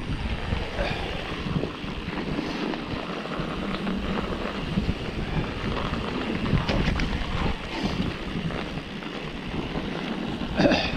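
Mountain bike riding down a snowy forest trail: a steady rush of wind noise on the microphone over the rumble of tyres on packed snow, with a few sharp knocks and rattles from the bike, the loudest near the end.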